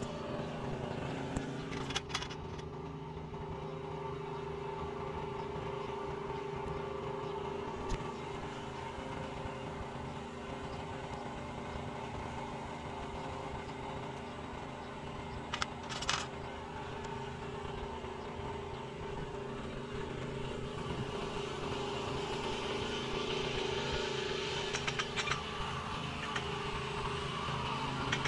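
A motor running steadily with an even drone, with a couple of short clicks, about two seconds in and again around sixteen seconds.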